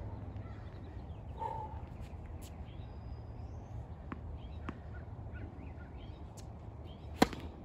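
Tennis serve: the racket strikes the ball once with a sharp pop near the end, the loudest sound here. Before it come a few faint taps of the ball being bounced on the hard court, with faint bird chirps over a low steady background rumble.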